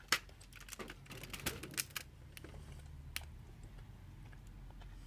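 Scattered light clicks and taps of handling, most of them in the first two seconds and a few more near the middle, over a faint steady low hum.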